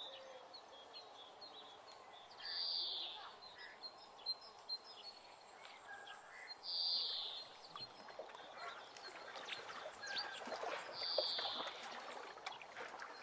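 Outdoor rural ambience with small birds chirping throughout. One louder bird call repeats three times, about four seconds apart. Near the end there is a patch of light clicking and rustling.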